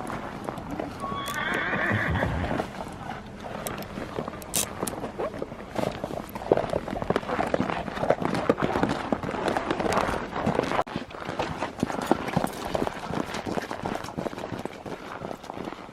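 A horse whinnies once, about a second in, then its hooves clop and stamp irregularly as it is handled, restless and keyed up.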